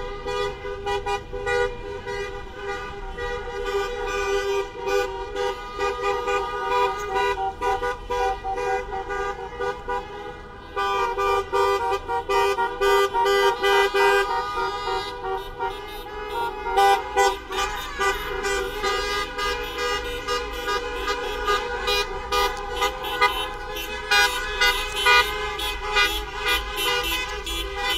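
Many car horns honking at once in a protest caravan: several steady held horn tones overlapping with many short, repeated toots from the passing cars.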